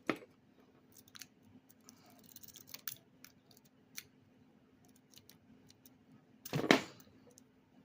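Small clicks and scrapes of a lock pick working inside a weathered, seized Master Lock No. 5 padlock. About six and a half seconds in, a loud knock as a hand smacks the camera holder.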